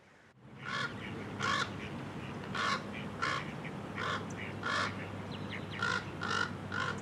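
Common raven calling a rapid series of about a dozen short, harsh caws, roughly two a second, starting about half a second in.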